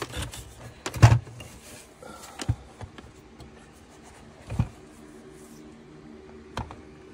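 Knocks and clunks as the stock 4Runner head unit, with its plastic center-stack bezel, is handled and turned over on a workbench. The loudest knock comes about a second in and three lighter ones follow, over a faint steady hum.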